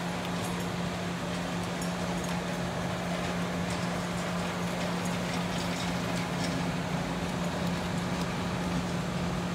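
Steady low hum of a powered-up Okuma MacTurn 350-W turning-milling centre standing idle, not cutting, with a few faint ticks.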